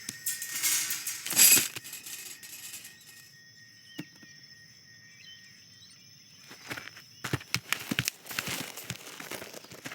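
Animated-film sound effects of an outdoor scene: crackling, rustling noises with one loud swell about a second and a half in, then a quiet stretch with faint steady high tones, then crackly rustling again from about seven seconds.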